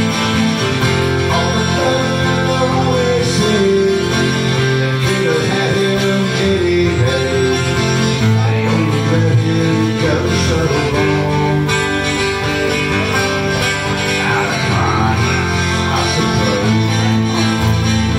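Twelve-string guitar strummed in steady chords, an instrumental passage of a country-folk song.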